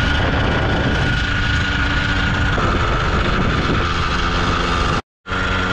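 A 50 cc motorcycle engine running steadily while riding, with a constant whine and heavy wind noise on the microphone. The sound cuts out for a moment about five seconds in.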